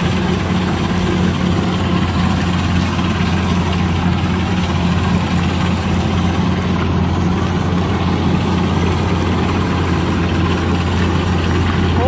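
Kubota DC-105X combine harvester's diesel engine running steadily while the machine cuts rice, a low even drone with no change in speed.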